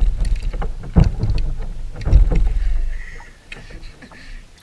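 Low bumps and knocks on the hull of a small plastic boat as a person standing in it shifts about, with louder thuds about one second and two seconds in, fading out after about three seconds.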